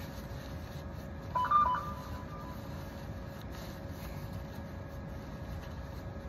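A brief electronic beep of a few steady tones, about a second long, about a second and a half in, over a steady background rumble with a faint constant hum.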